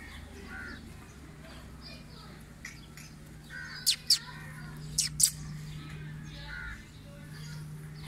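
Bird calls and faint distant voices over a steady low hum. About halfway through come two pairs of sharp clicks or knocks, the loudest sounds here.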